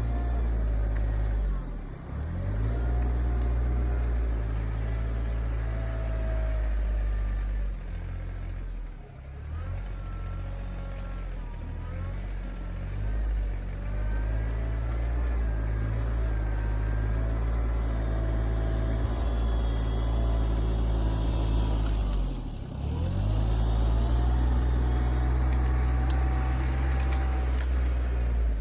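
RK24 compact diesel tractor engine running under load while pushing mulch, its pitch dipping and recovering three times: about two seconds in, about nine seconds in, and near twenty-two seconds in.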